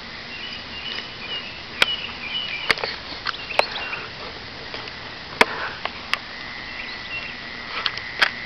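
Night insects chirping, then trilling steadily in a high tone, with about seven sharp, irregularly spaced clicks.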